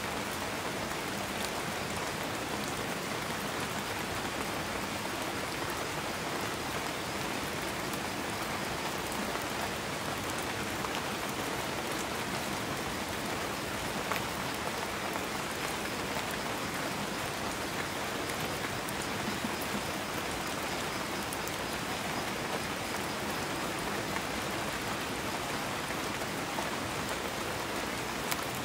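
Steady, even hiss of falling water, with a few scattered light ticks of drops.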